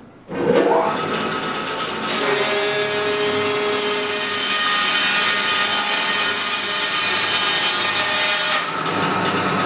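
Pilous CTR 750 EV band sawmill: a rising whine just after the start as the saw runs up, then from about two seconds in a loud, steady sawing hiss as the band blade cuts through the log. The hiss drops near the end, leaving the machine's steady running tone.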